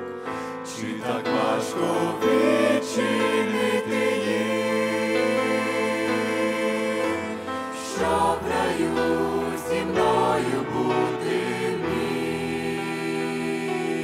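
A male vocal trio sings a Ukrainian gospel song, held sung phrases over steady instrumental backing, with a new phrase about halfway through.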